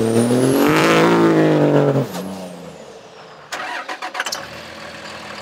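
Built 2012 Ram 2500's Cummins turbo-diesel revving hard as the truck pulls away rolling coal, its note rising with a climbing high whistle above it, then dropping off sharply about two seconds in. A few sharp clicks follow about a second and a half later, then a quieter steady engine hum.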